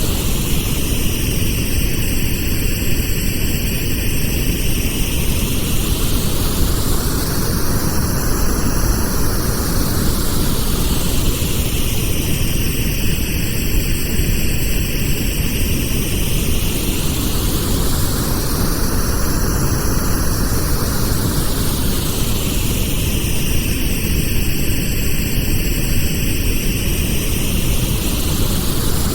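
Steady synthetic pink noise, a continuous hiss spread from deep rumble to high fizz, with a slow whooshing sweep that rises and falls about every eleven seconds.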